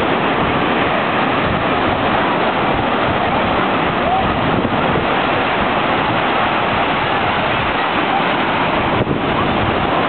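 Ocean surf breaking and washing up the shore in a steady rush, with the voices of many bathers in the water mixed in.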